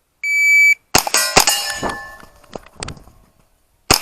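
A shot-timer start beep, then a rapid string of shots from a .22 rimfire AR-style rifle. Each shot is followed by the ring of a steel plate being hit. The shots pause briefly and resume near the end.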